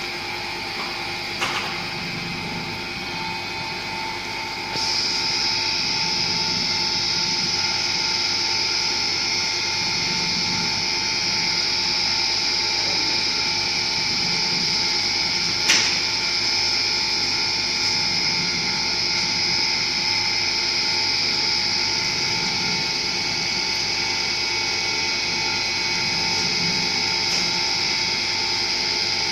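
Semi-automatic batch fryer running with its stirring paddle turning through snack pellets in oil: a steady mechanical whine with a low churn that pulses about every two seconds. The whine gets louder about five seconds in, and there is one sharp click past halfway.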